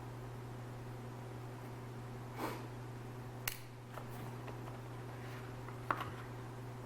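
Knife being handled: a few separate sharp clicks and a brief rustle over a steady low hum.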